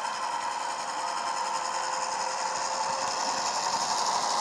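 Model Irish 181 class diesel locomotive's DCC sound decoder playing diesel engine sound through a small 30x17 speaker, with the model's running noise on the track. The engine note climbs slightly and grows steadily louder as the loco approaches.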